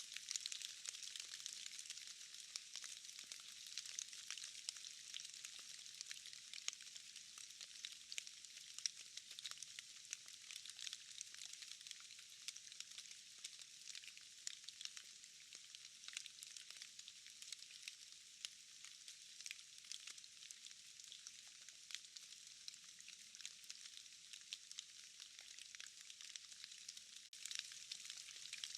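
Faint steady rain falling in a forest, a dense hiss of countless small drops with scattered sharper ticks of drops landing from trees and moss.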